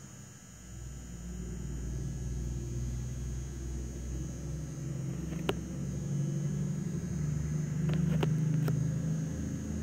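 A low, steady mechanical rumble that grows louder after the middle, with a few faint clicks.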